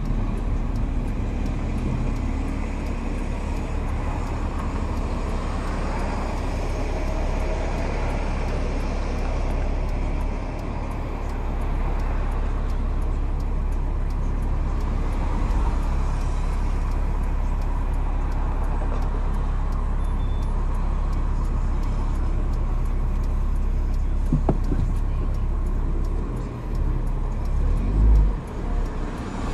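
Acura RSX Type-S's 2.0-litre four-cylinder engine idling at a standstill, heard from inside the cabin as a steady low hum, with other cars passing outside. Near the end the low engine sound swells unevenly as the car starts to pull away.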